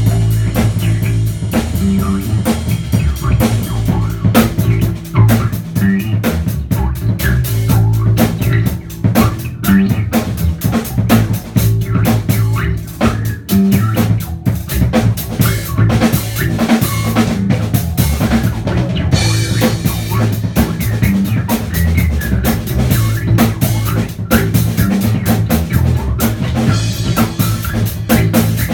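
Loud live jam on drum kit and bass guitar: dense drum hits with a bass groove underneath.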